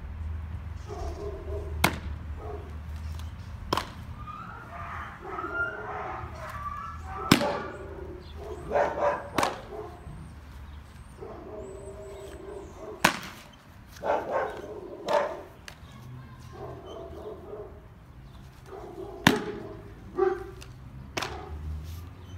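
Baseball smacking into a catcher's mitt, about six sharp pops a few seconds apart. Between the catches, a dog barks in short bursts.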